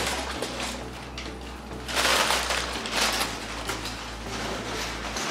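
Cardboard rustling and scraping as a hand rummages inside an open cardboard shipping box, loudest about two seconds in.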